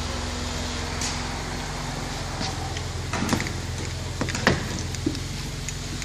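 Several short clicks and clunks from a 2003 Toyota Alphard's door locks and electric folding side mirrors, operated with the remote key fob; the loudest comes a little after the middle. A steady low hum runs underneath.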